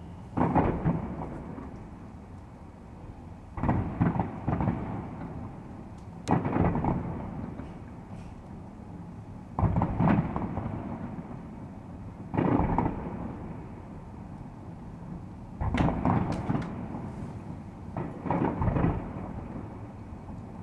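Aerial fireworks shells bursting: about eight deep booms, two to three seconds apart, each trailing off in a rolling, thunder-like rumble.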